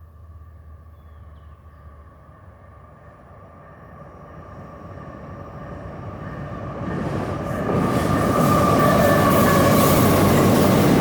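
Diesel-led Norfolk Southern train approaching, its engine and rolling wheels growing steadily louder from about four seconds in until they are loud near the end.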